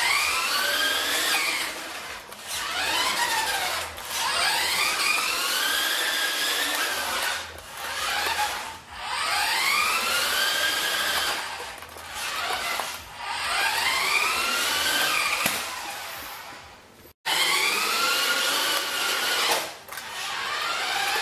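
Vintage Radio Shack Off-Roader 4x4 RC truck's electric motor and gears whining, rising and falling in pitch as it speeds up and slows down in repeated short runs with brief pauses between.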